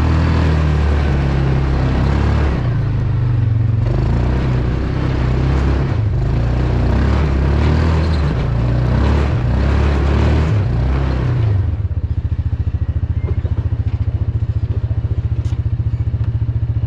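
Yamaha Rhino UTV's single-cylinder engine working up a steep rocky trail, with rocks and gravel clattering against the tyres and body. About twelve seconds in the vehicle stops and the engine settles to a steady, even idle.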